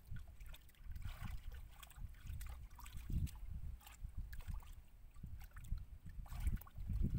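Hands groping and squelching in wet mud, with irregular small wet splats and slaps over a low, uneven rumble.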